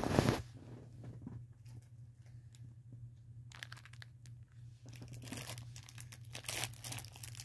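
Clear plastic wrapper of an individually wrapped snack cake crinkling and tearing as it is opened by hand, in scattered bursts that pick up from about halfway through, over a low steady hum.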